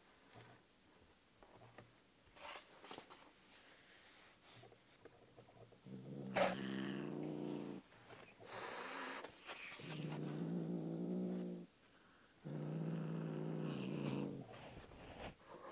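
A cat growling in three long, low, drawn-out growls, with a hiss between the first and second.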